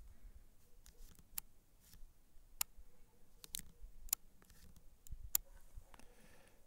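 Faint handling noise of a phone and a drone remote controller: a handful of sharp, irregular clicks and taps over a low rumble.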